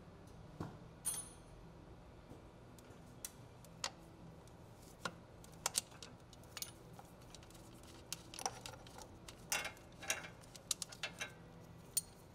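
Irregular small clicks and light metallic ticks of hand tools unscrewing and lifting a sensor out of a stock plastic boost tube in a diesel engine bay, coming more often near the end.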